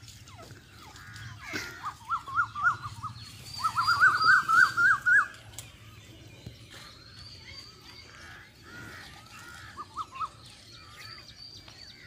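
Partridges (teetar) calling: a loud run of quick, chattering notes that climbs in pitch, starting about a second and a half in and lasting a few seconds, with a brief run again near the end. Thin, high chirps from small birds sound above it.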